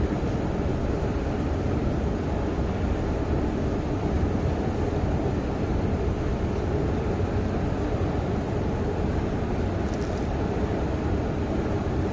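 Steady low rumble of escalators running in a deep underground railway station hall, an even drone with no change in level.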